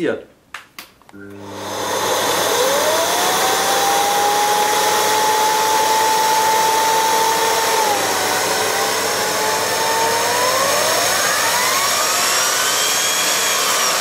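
Philips Marathon FC9218 canister vacuum cleaner switched on about a second in, its motor running up to a steady, loud whoosh while its upturned floor nozzle's brush roller spins freely. A whistling tone glides up, holds, dips about eight seconds in, then climbs higher and falls back near the end.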